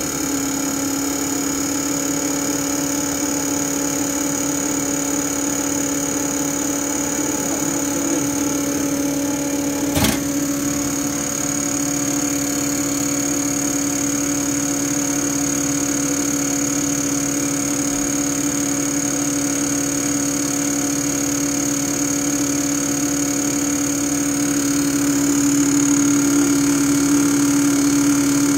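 Diesel injector test bench running with a Bosch piezo injector on test: a steady machine hum with a high whine over it. One sharp click about ten seconds in, and the sound gets a little louder near the end.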